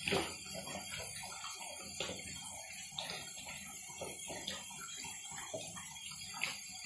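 Water from a handheld shower head running and splashing over a head and shoulders in a bathtub, with short sharp ticks and splashes every second or so.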